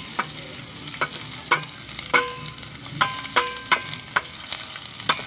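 Wooden spatula stirring chopped onion and garlic in a metal pan, knocking and scraping against the pan about twice a second, some knocks making the pan ring briefly, over the sizzle of the onion and garlic sautéing in oil.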